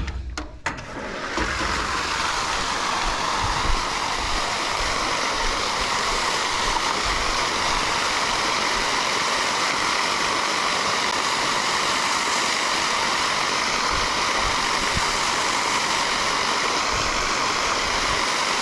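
Floating dam fountain aerator switched on: its jet of water falls back onto the dam with a steady splashing rush, which builds up over about a second and then holds even.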